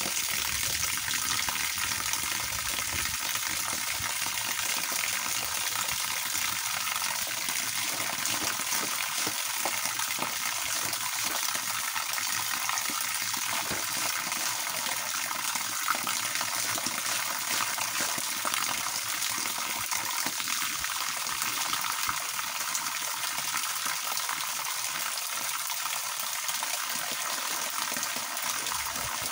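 A steady stream of water from an overhead hose pipe pouring and splashing down continuously onto a person washing beneath it.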